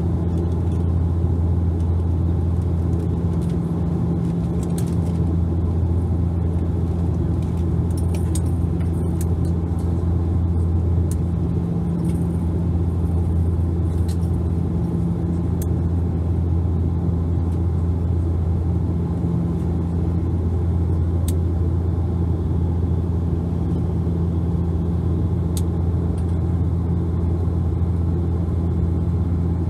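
Cabin noise inside a Bombardier Dash 8 Q400 turboprop in flight: the steady drone of its propellers, a deep hum with a second, higher hum above it, over a constant rush of air and engine noise.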